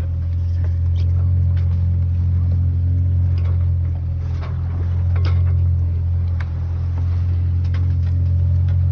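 A sailboat's auxiliary engine running steadily, heard as a deep, unbroken drone, with scattered small clicks and knocks on deck.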